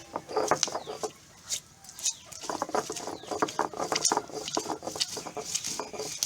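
Stone roller being worked back and forth on an ammikkallu grinding stone, crushing green chillies and curry leaves for a coarse chutney. It makes quick, rough scraping and knocking strokes, with a short pause about a second in.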